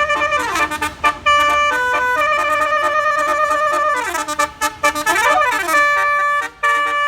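Indonesian bus 'telolet basuri' musical air horn playing a loud tune of held notes that step up and down with short breaks, broken by several quick downward pitch slides and one dip-and-rise swoop.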